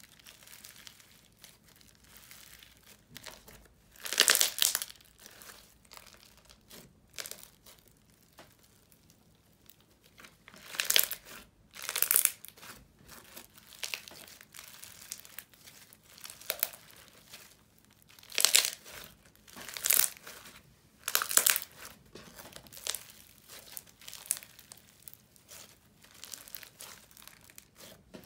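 Glittery brown slime being squished, folded and stretched by hand, giving irregular bursts of sticky slime noise as it is pressed and pulled apart, with quieter stretches between; the loudest bursts come about four seconds in, around the middle and a little after.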